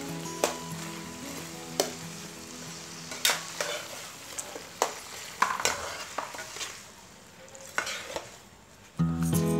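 Whole shrimp sizzling in hot oil in a non-stick frying pan while a spatula stirs and turns them, clicking and scraping against the pan several times.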